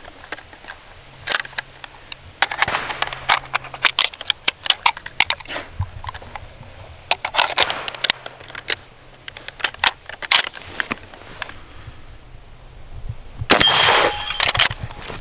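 Many sharp metallic clicks and clacks as cartridges are pushed into a Swiss K31 straight-pull rifle and its action is worked. Near the end comes a loud bang with a brief ring, the rifle firing.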